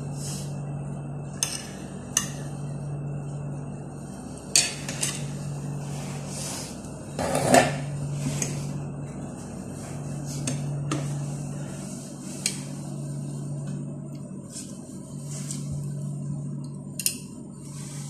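Metal spoon and fork clinking and scraping against a ceramic dinner plate while eating, in scattered taps with the loudest clatter about halfway through. A low hum swells and fades every couple of seconds behind it.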